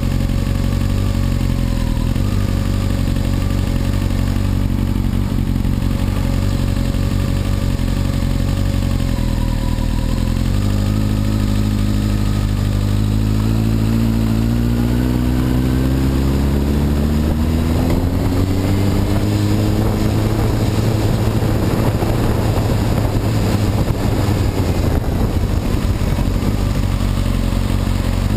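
A Honda CBR954RR's inline-four engine idles at a standstill, then pulls away about ten seconds in. Its pitch climbs steadily as the bike accelerates, and wind noise builds in the second half.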